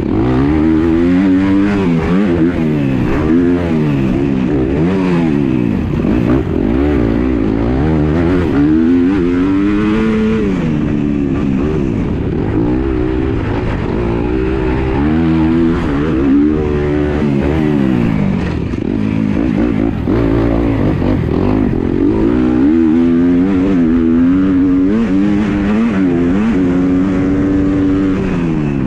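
Dirt bike engine ridden hard, its pitch repeatedly climbing and dropping back every few seconds as the rider goes on and off the throttle and shifts gears.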